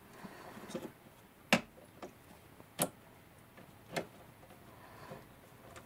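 Three sharp metallic clicks, about a second and a quarter apart, with faint rubbing between, as the steel grinding fixture's dividing ring and locking pin are handled and set.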